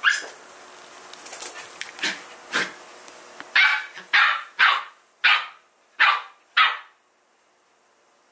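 Dog barking: a sharp bark at the start, a few softer barks, then six loud high barks in quick succession, about one every two-thirds of a second, ending about seven seconds in.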